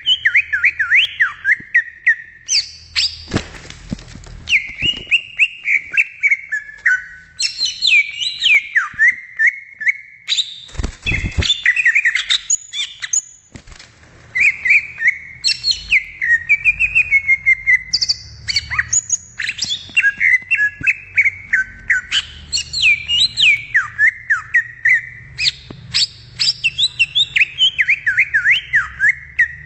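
Cucak ijo (green leafbird) singing a long, varied song: fast runs of chirps and whistled notes sweeping up and down, phrase after phrase with only brief breaks.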